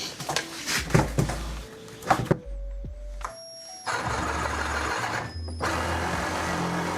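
A few knocks of the wooden handrail being handled, then a power saw starts about four seconds in and runs steadily, cutting off the bottom end of the handrail.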